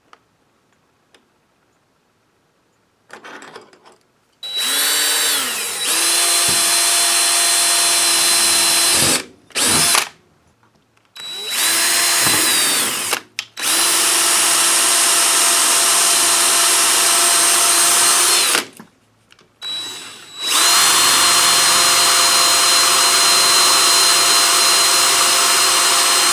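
Electric drill boring 1/8-inch holes into a sliding patio door frame, in several runs of a few seconds each with short pauses between, the motor spinning up at the start of each run and then running with a steady whine.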